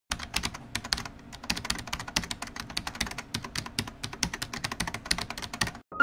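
Fast, irregular clicking of typing on a keyboard, many keystrokes a second, stopping abruptly near the end.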